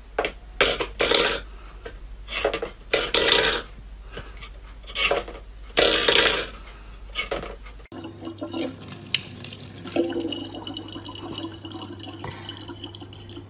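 A steel pet bowl scraping and clattering on a wooden floor in short, separate bursts. About eight seconds in it gives way to a thin stream of tap water running steadily into a plastic bottle.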